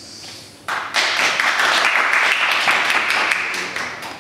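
A small group of people clapping, starting suddenly about a second in and fading out near the end.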